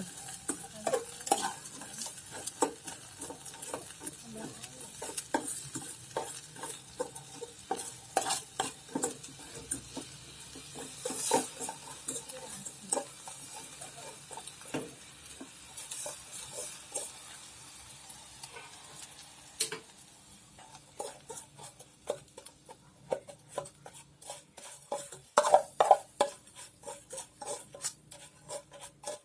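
A utensil stirring boiling ginger juice and melting palm sugar in a pot, clinking and scraping against the pot at irregular intervals over a faint simmering hiss. The clinks get louder near the end.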